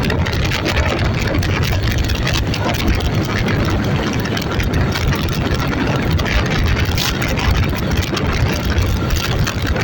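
An engine running steadily, its sound strongest in the low range.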